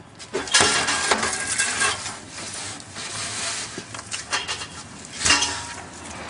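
Metal parts from a dismantled water heater clattering and clinking as they are handled and set down: a dense rattle starting about half a second in, scattered clinks after it, and a second loud clatter near the end.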